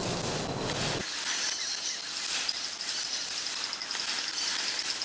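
Woodland outdoor ambience. A low, wind-like rush in the first second cuts off abruptly. After it comes a quieter hiss with a high, fast pulsing trill, like an insect or bird, from about two seconds in.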